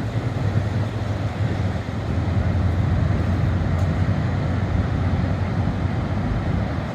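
Large ocean waves crashing and rolling in on a beach, mixed with strong wind buffeting the microphone as a continuous low rumble. It swells slightly about two seconds in.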